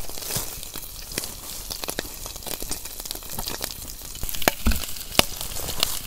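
Octopus frying in hot oil in a pan, sizzling steadily and spitting with frequent sharp pops and crackles, with two louder pops in the second half: the gills popping in the oil, which he describes as popping like bombs.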